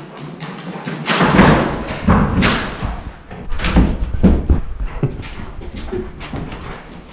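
A run of thuds, knocks and scuffing close to the microphone, loudest and densest in the first half, as a low-mounted camera bumps and rubs while a dog moves about.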